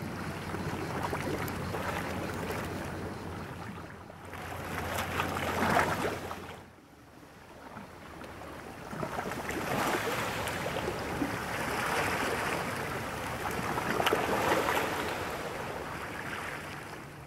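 Sea waves lapping against shoreline rocks: a steady wash of water noise that swells and eases, dropping away briefly about seven seconds in.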